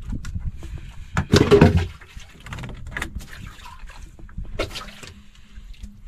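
Sea water sloshing against a small boat's hull, with one loud splashing rush about a second in and a few light knocks.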